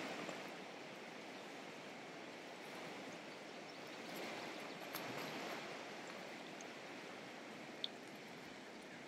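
Steady, faint rush of flowing river water, with one short high tick about eight seconds in.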